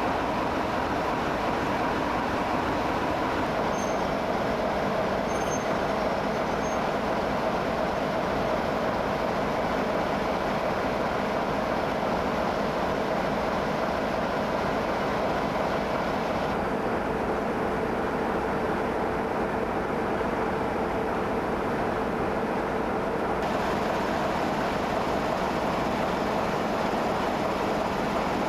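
Diesel train engine running steadily, a continuous hum with steady tones.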